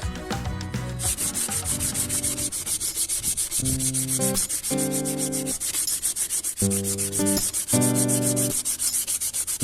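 Sandpaper rubbing on wood in quick, even back-and-forth strokes, about eight a second, starting about a second in.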